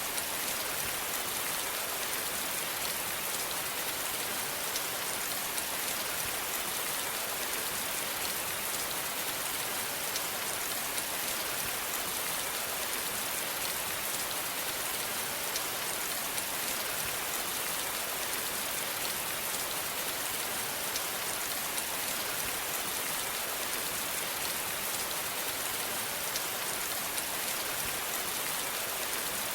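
Steady rain falling on a surface: an even hiss full of fine drop patter, with no change in intensity.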